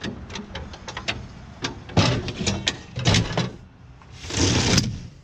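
Metal clicks, rattles and clunks from a fire-truck compartment's slide-out saw tray and its latch being worked, with heavier knocks midway and a short rattling rush near the end.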